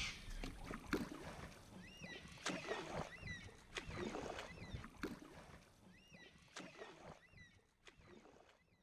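Quiet canoe sounds, faint splashes and scattered knocks on the hull, while a bird repeats a short chirp about once a second. It all fades out near the end.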